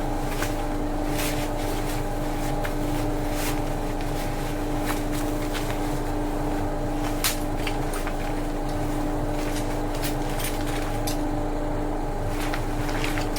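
A steady mechanical hum: a constant low drone with a fixed mid-pitched tone, and a few faint clicks scattered through it.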